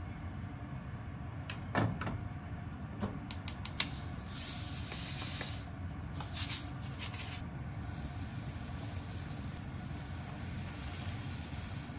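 Kitchen sounds at a gas stove: a pot is set down on the grate with a knock, then a quick run of sharp clicks, like a burner igniter lighting the flame, followed by short papery rustles. A steady low hum runs underneath.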